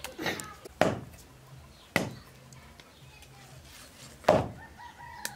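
Goat meat being chopped on a wooden block: four sharp chops, spaced irregularly, the last the loudest.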